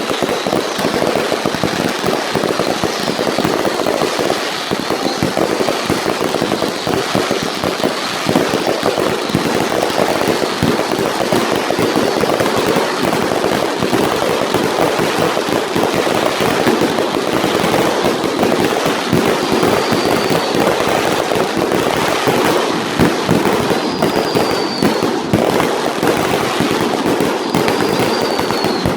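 Fireworks finale barrage: a dense, continuous rattle of bursts and crackle, with a few short whistles in the second half.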